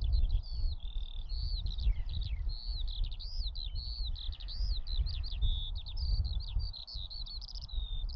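Skylark song: a long unbroken stream of rapid, warbling high notes, with trills and quick slides up and down. A steady low rumble runs underneath.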